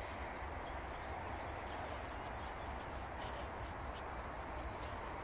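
Steady outdoor background noise with a low rumble, a small bird singing faint high trills in short runs, and a few soft ticks.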